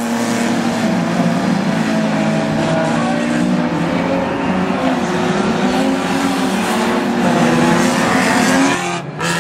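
Several banger racing car engines running and revving at once, their pitches rising and falling over each other. The sound dips briefly near the end.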